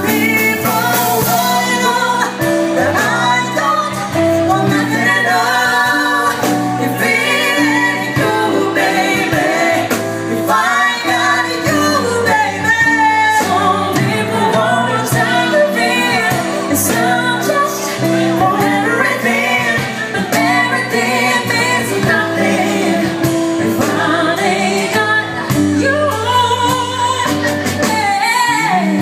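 A live band with several singers, men and women, singing over keyboard, bass and drums. The low bass drops out near the end.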